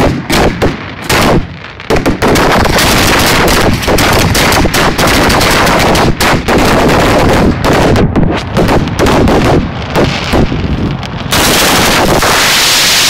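Fireworks fired at close range: a rapid volley of loud launch bangs, a few separate shots at first, then an almost continuous barrage. About eleven seconds in, the bangs merge into one unbroken blast of noise.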